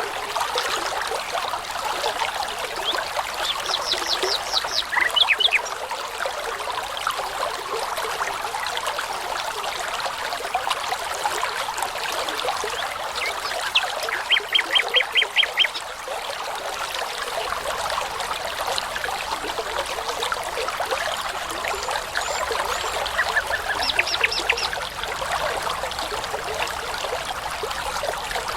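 Babbling brook running steadily, with a songbird singing three short phrases of rapidly repeated high notes, each lasting about a second and a half, spaced roughly ten seconds apart.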